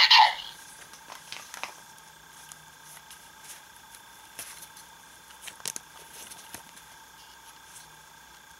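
A loud sound ends within the first half-second. After that, a plastic toy transformation belt device is handled in the hands, giving scattered faint clicks and taps of plastic, a few at a time.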